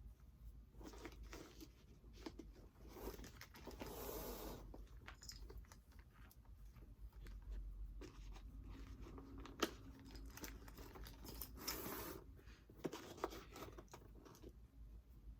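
Soft handling noises of a leather sneaker being laced by hand: laces pulled through the eyelets with rustles, scrapes and scattered light clicks, and two longer rustles about four and twelve seconds in.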